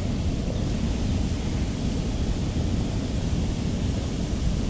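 Steady wind buffeting the microphone: an even low rush with no distinct sounds standing out.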